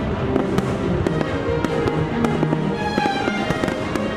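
A fireworks display: aerial shells bursting in a rapid series of bangs, with music playing throughout.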